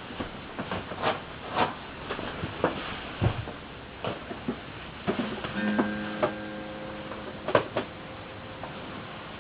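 Irregular clicks and light taps, with a steady low electrical hum that comes in a little past halfway.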